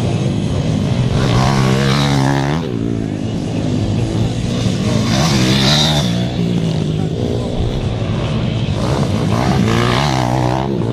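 Racing dirt-bike engines revving hard as the motorcycles ride the track, the pitch climbing and then dropping off sharply several times as the riders open and close the throttle.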